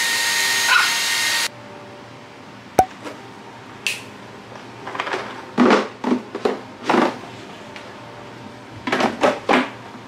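Handheld cordless vacuum cleaner running with a steady whine, stopping abruptly about a second and a half in. Then a few light clicks and short scratchy strokes as plastic snack bins are handled and labelled with a pen.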